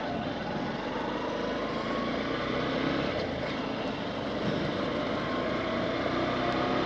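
Motorcycle engine running and wind rushing over a helmet-mounted phone microphone while riding along a road, with a faint rise in the engine note about a second in.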